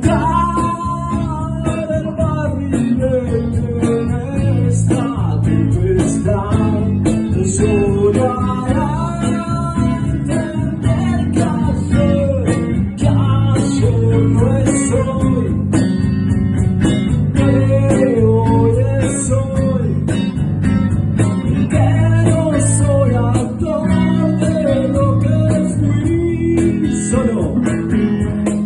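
Band music: guitars over a steady bass, with a melody line that bends up and down.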